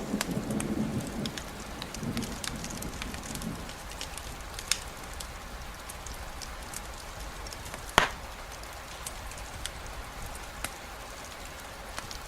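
Steady rainfall with scattered drips and patters. A low rumble of distant thunder dies away in the first few seconds. About eight seconds in comes a single sharp tick, the loudest sound.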